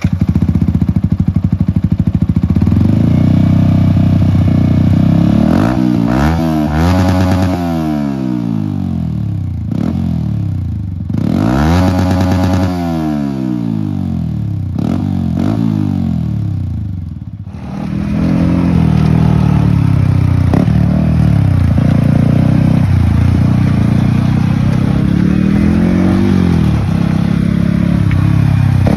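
Yamaha R15 V3's single-cylinder engine through an aftermarket Akrapovic exhaust with catalytic converter, loud and bassy. It is revved repeatedly with the bike standing, the pitch sweeping up and falling back several times. About two-thirds of the way in it is heard while being ridden, the engine note rising and falling.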